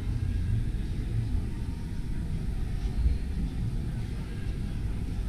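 Hall ambience: a low steady rumble with faint background chatter.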